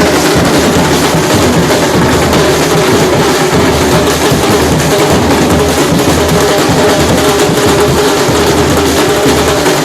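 Loud music with drums and percussion, playing without a break.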